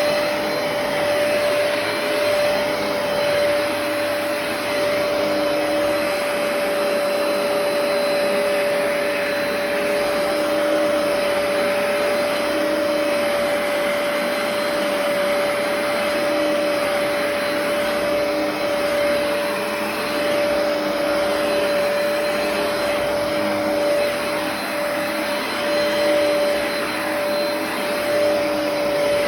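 Hoover PowerDash Pet compact carpet cleaner running: a steady motor hum with one strong held tone, and a fainter lower tone that swells and fades every second or two.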